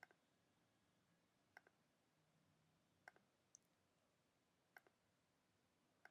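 Faint computer mouse clicks against near silence: about six short clicks spaced a second or more apart, one of them a quick double click, as edges are selected in the software.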